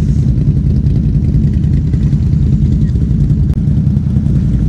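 ATV engine running hard at steady revs while the stuck machine's tyres spin without grip.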